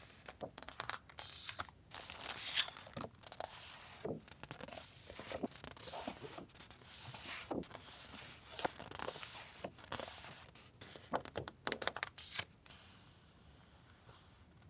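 Paper and plastic stationery packaging being handled: quick, irregular crinkling and tearing rustles that stop about twelve and a half seconds in.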